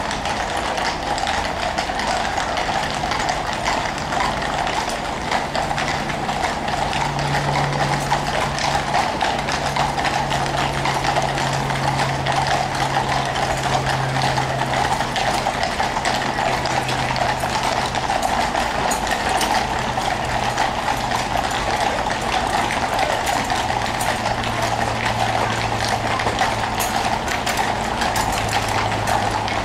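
The hooves of many horses drawing state carriages clip-clop on asphalt in a steady stream of clicks. Under them a vehicle engine hums low, slowly falling in pitch.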